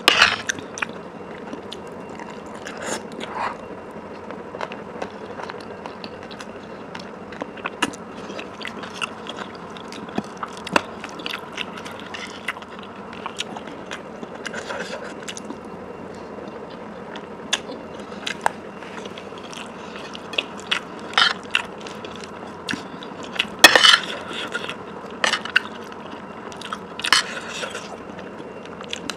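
A person chewing and biting food close to the microphone, with irregular sharp crunches and mouth clicks, the loudest near the start and about three-quarters of the way through.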